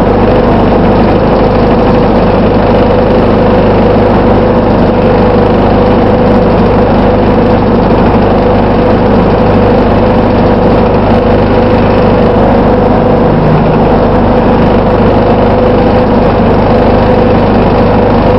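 Plaxton Pointer-bodied Dennis Dart bus's diesel engine running steadily, with a constant whirring tone over the engine note.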